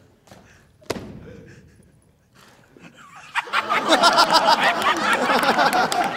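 A single sharp thump with a short echo about a second in, then a large crowd bursts into loud laughter and shouting about three and a half seconds in, in a large hall.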